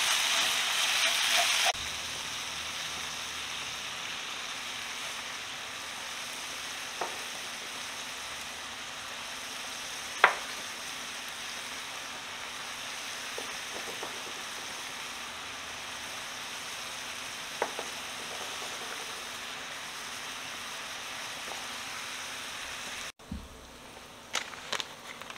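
Shrimp and diced vegetables sizzling steadily in a hot cast-iron skillet, with a few sharp taps of a spatula against the pan. Near the end the sizzle drops to a quieter hiss as a corn tortilla heats in the oiled skillet.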